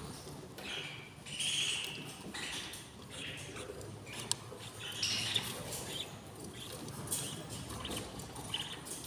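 Budgies chirping in short, scattered calls, with a sharp click about four seconds in.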